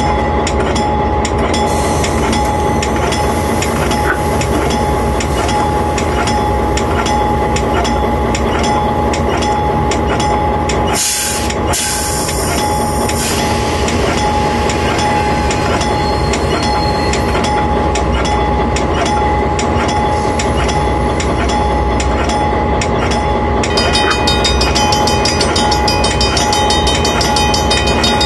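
Train running along the track, heard from the front of the train: a steady mix of engine and rail noise with a constant whine, dipping briefly about eleven seconds in. A higher, ringing sound joins about three-quarters of the way through.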